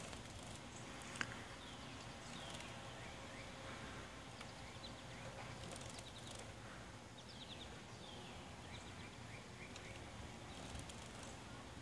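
Faint series of short falling bird chirps, with scattered sharp taps, one louder about a second in: a female goldfinch pecking at a car's side mirror.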